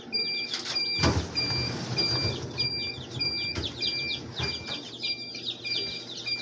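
Many newly hatched Rhode Island Red chicks peeping, over an electronic beep that repeats steadily about every half second. About a second in, metal hatcher trays clatter and scrape as they are handled, with a few lighter knocks later.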